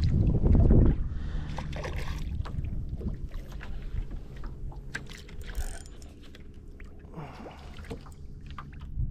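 A small boat's motor hums steadily, with scattered clicks and knocks. A loud low rumble, like wind on the microphone, fills the first second.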